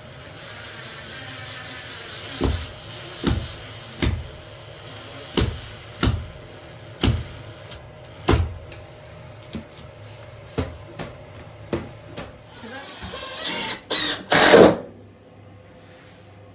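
Renovation work: a run of about eight sharp knocks, roughly one a second, then scattered lighter clicks. Near the end, a power drill runs in two short bursts.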